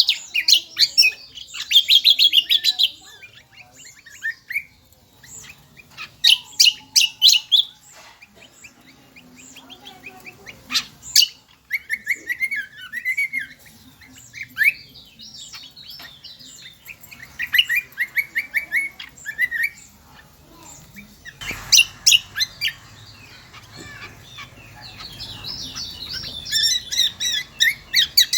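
Kecial kombo (cucak kombo) songbird singing in shrill bursts: rapid runs of high chirps and trills lasting a second or two, repeated every few seconds.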